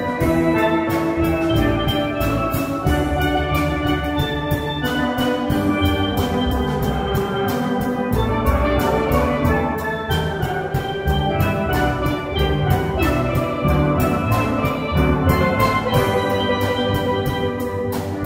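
Instrumental ensemble music: bright, pitched melody notes over a steady percussion beat, with no singing.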